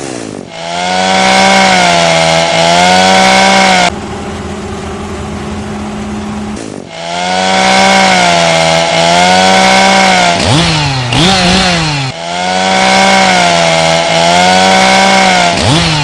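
Two-stroke chainsaw running at full throttle and cutting wood, its engine pitch sagging and recovering under load, with quick rev-ups and drops about three-quarters of the way through. The sound comes in several stretches joined by abrupt cuts, one of them a steadier, quieter run.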